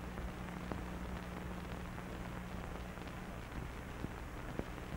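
Steady hiss and low hum of an old film soundtrack, with a few faint clicks and pops scattered through it.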